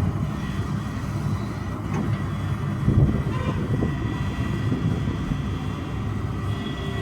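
XCMG XE215 excavator's diesel engine running steadily with a low rumble and a faint high whine, with a few knocks about two and three seconds in.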